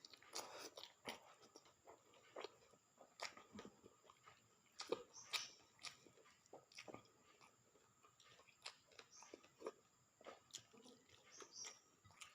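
A person chewing and eating close to the microphone: irregular, quiet mouth clicks and smacks, one or two a second.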